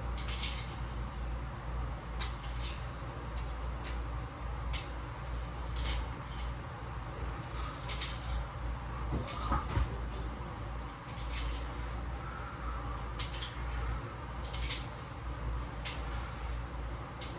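Metal handcuffs being flipped over and over by hand, giving short, irregular metallic clicks and clinks every second or so, over a steady low hum.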